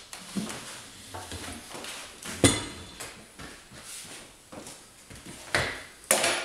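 Metal clanks and scrapes of a manual tire changer's long steel mount/demount bar being moved and set back onto the changer's duckbill head and center post. One sharp clank about two and a half seconds in is the loudest, with two more near the end.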